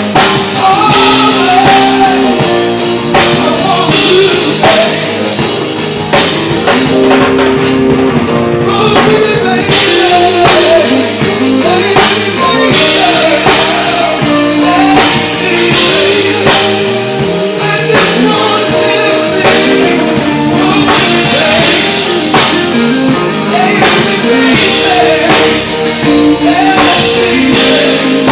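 Live band playing a slow song, drum kit keeping a steady beat under guitar and sustained chords, with a wavering melody line that may be vocal ad-libs.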